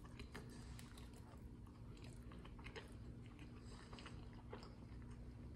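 Faint sounds of a person biting into and chewing a beef burger with a soft bun: many small wet clicks and smacks of the mouth, over a steady low hum.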